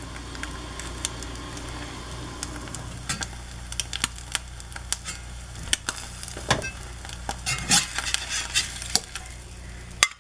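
Fried egg cooking in butter in a cast iron skillet: a steady sizzle with frequent small pops and crackles, crackling more often from a few seconds in.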